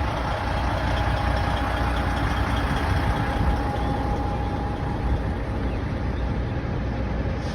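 Freightliner semi truck's diesel engine running steadily with a low rumble and a faint steady whine.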